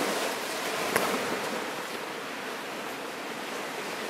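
Small sea waves washing against boulders and sand at the water's edge: a steady wash, a little louder in the first second, with one short click about a second in.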